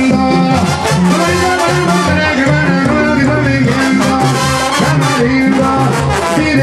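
Live Mexican banda music played loud: brass instruments and drums over a stepping bass line, with a man singing into a microphone.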